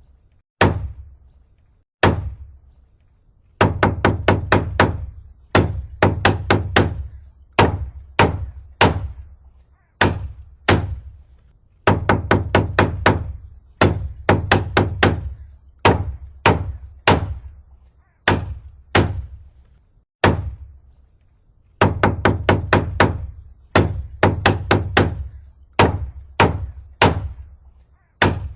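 A hammer striking repeatedly, some blows single and spaced a second or two apart, others in quick runs of four or five at about four blows a second, each with a short ringing decay.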